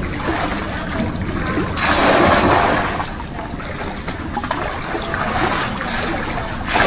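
Floodwater splashing and sloshing as a plastic bucket is scooped through it and tipped out, with the loudest splash about two seconds in.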